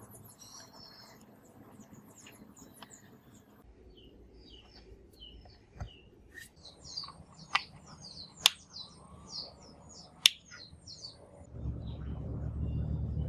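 Small birds chirping in quick runs of short, high notes. Several sharp clicks come through, the loudest about eight and a half and ten seconds in, and a low rumble starts near the end.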